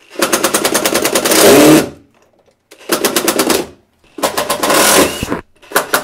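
Impact driver hammering a screw into a door frame through a metal lock plate, in four bursts of rapid impacts with short pauses between them. The screw is meeting stiff resistance.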